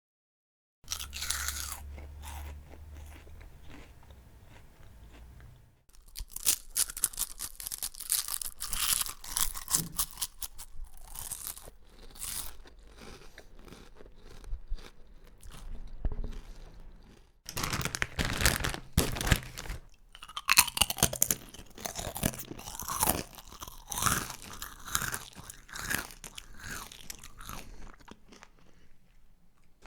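A person biting and chewing crunchy snacks such as biscuits and crisps, loud crackling crunches close to the mouth. It comes in three separate recordings, with sudden changes about six seconds in and again past halfway.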